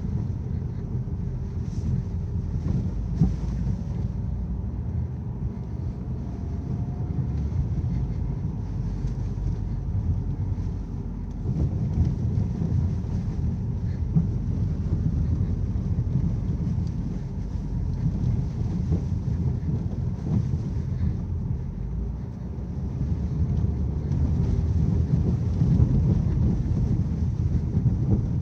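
Low rumble from a Ford Focus with many short knocks and clunks running through it: the noise the owner puts down to the steering rack.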